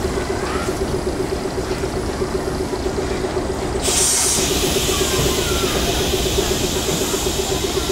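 Steam tank locomotive working away from the listener, with a steady, rapid pulsing under it; about four seconds in a hiss starts suddenly and keeps on.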